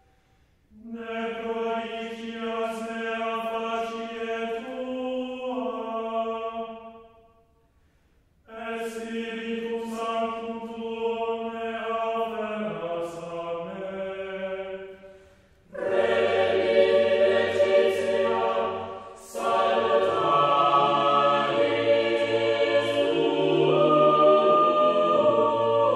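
Background music: choral chant with sustained, steady-pitched voices in long phrases that move in steps. The phrases are separated by short pauses, and the texture grows fuller with deeper voices added about sixteen seconds in.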